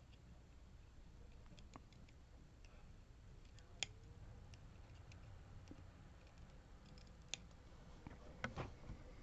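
A few faint, scattered small clicks from the small metal parts of a disassembled Goal P lock being handled: pins, springs and tools. The sharpest click comes about four seconds in, and a quick cluster of clicks comes near the end.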